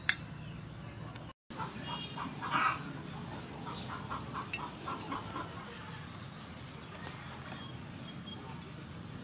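A chicken clucking in a run of short repeated calls, a few a second, which fades out about halfway through. A sharp click comes right at the start, and the sound cuts out briefly just before the clucking begins.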